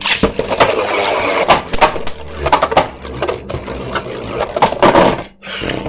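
Two Beyblade spinning tops, a 3D-printed Hero Samuraizor and a Super Hyperion, spinning and clashing in a plastic stadium: a rapid series of sharp plastic clacks as they hit each other again and again.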